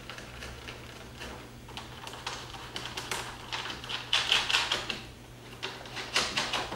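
Runs of quick, sharp clicks and taps from hands pressing and working a spoiler piece onto a car's rear body panel, densest and loudest about four seconds in, with another run near the end.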